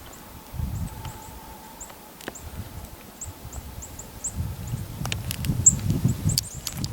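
Small birds giving short, high chips over and over, with a low rumbling noise underneath that grows stronger over the last couple of seconds.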